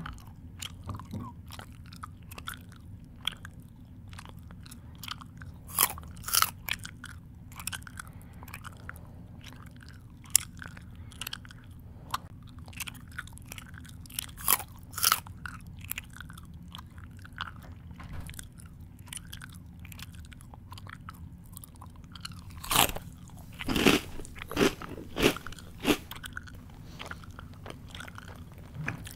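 A person chewing crunchy food close to the microphone, with irregular sharp crunches and bites, a few louder ones about six seconds in, around the middle, and a dense run near the end, over a steady low hum.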